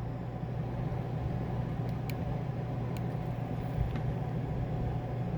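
Steady low hum of an idling vehicle heard from inside the cab, with a few faint clicks about a second apart from the Kenwood TM-V71 radio's controls being worked.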